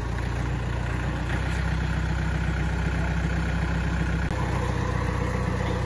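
Yanmar EF514T tractor's diesel engine running steadily as the tractor drives; the engine note shifts slightly about four seconds in.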